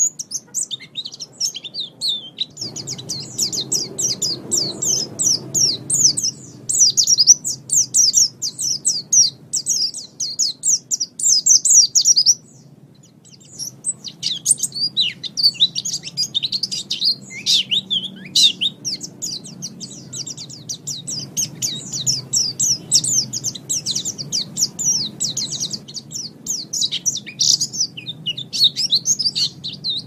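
White-eye (pleci) singing: a fast, continuous run of high twittering chirps, breaking off for about a second midway before going on.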